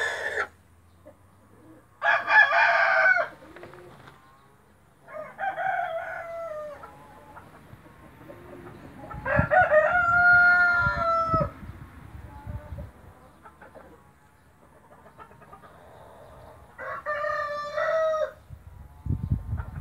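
White splash Brahma rooster crowing several times, each crow a second or two long, the longest and loudest near the middle. A few low thumps come near the end.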